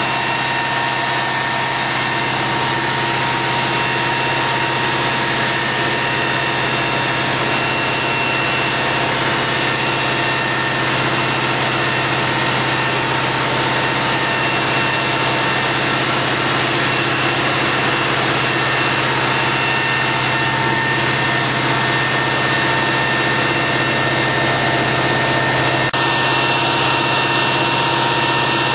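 Fire engine running steadily at one constant speed: a low drone with a steady high whine over it and a hiss beneath. A click comes near the end, where the sound shifts slightly.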